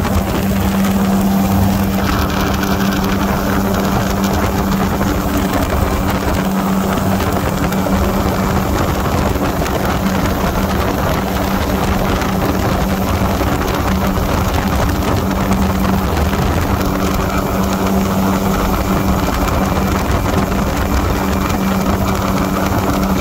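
Engine and propeller of a light aircraft heard on board in flight: a steady drone at a constant pitch over a rushing noise.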